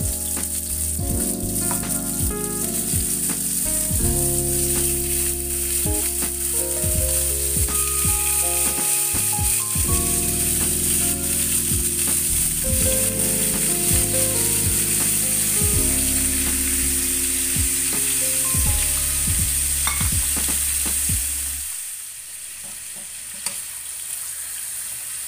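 Marinated chicken pieces frying in hot oil in a frying pan, a steady sizzle, with scattered sharp clicks of metal-and-nylon tongs as pieces are laid in and turned.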